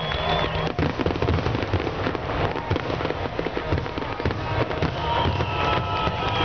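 Fireworks grand finale: a dense, continuous barrage of shell bursts and crackling reports, many a second, with no break.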